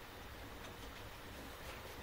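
Faint scrapes and light taps of a putty knife working sticky honeycomb into a small stainless fruit press, over a steady low room hum.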